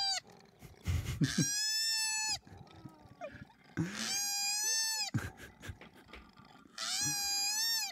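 Koala crying in distress: three drawn-out, high wailing cries about a second each, with short quieter sounds between them.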